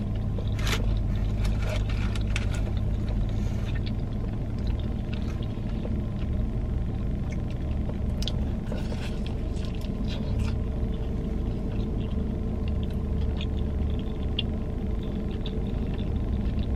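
Chewing and crunching of a fried chicken wing, with small sharp crackles scattered throughout, over the steady low rumble of a car idling, heard inside the car's cabin.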